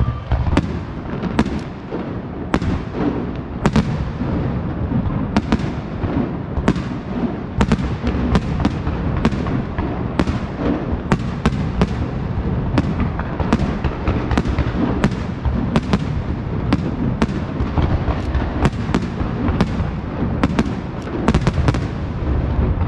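A Pirotecnia Martí castillo, an aerial firework display, with shells bursting in quick succession: a steady string of sharp bangs, about one or two a second, over a continuous low rumble.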